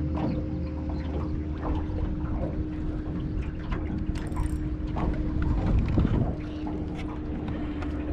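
Electric trolling motor running with a steady hum as the boat turns, over a low rumble of wind and water; the hum fades briefly about six seconds in.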